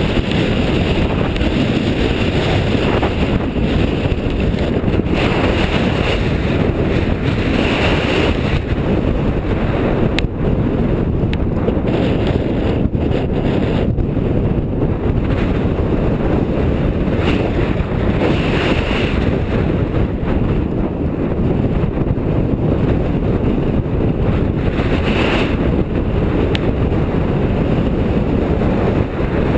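Strong mountain wind buffeting the camera's microphone: a loud, steady, low rumble with occasional gusty hiss.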